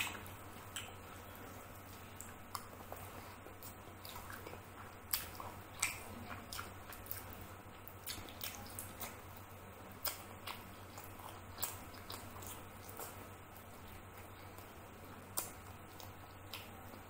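Close-up eating by hand, chicken curry and rice: irregular wet mouth clicks and smacks of chewing, with soft squishes of fingers working the rice.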